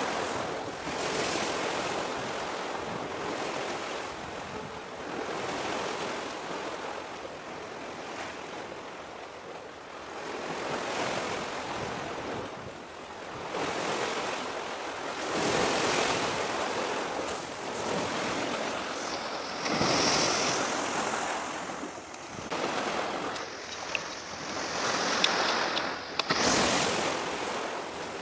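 Sea waves washing and breaking: a rushing noise that swells and fades every few seconds, with some wind on the microphone.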